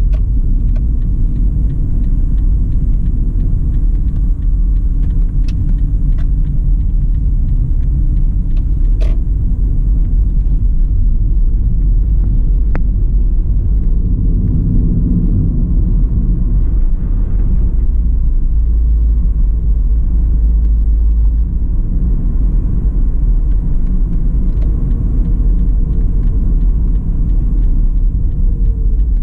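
Steady low rumble of a car driving along the road, heard from inside the cabin: engine and tyre noise, with a couple of faint clicks.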